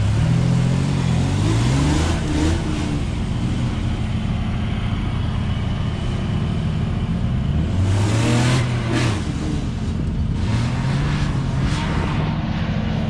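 An off-road SUV engine revs up and eases off three times while driving in soft dune sand.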